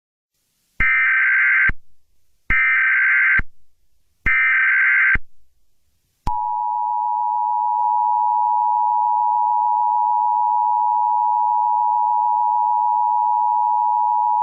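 Emergency Alert System tones: three short bursts of SAME header data tones, about a second each, then the two-tone EAS attention signal held steadily for about eight seconds.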